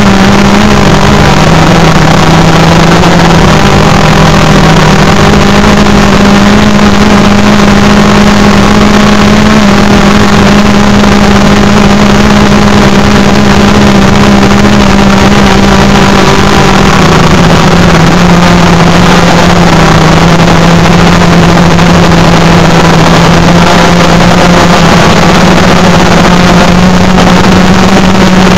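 DJI Phantom 3 Pro quadcopter's motors and propellers buzzing steadily in flight, picked up at point-blank range by a recorder strapped to the drone, loud, with a constant rushing noise. Two steady hum pitches run together, one shifting down about 17 seconds in as the motor speeds change.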